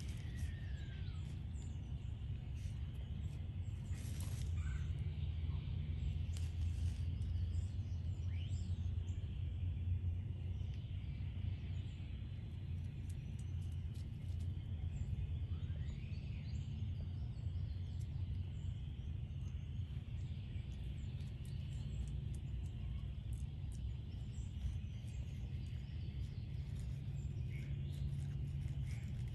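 Outdoor background with a steady low rumble, a few short bird chirps, and light rustling of pine needles and plastic wrapping as a puppy digs in a bale of pine straw.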